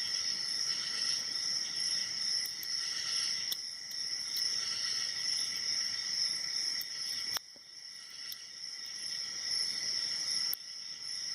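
Crickets chirring steadily in the background, with a few faint clicks of a hook pick working the pin stack of a padlock under tension.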